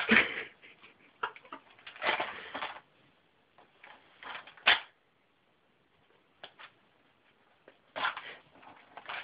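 A cat at a small plastic bowl of treats making irregular crunching and rustling in short bursts, with one sharp click about halfway through.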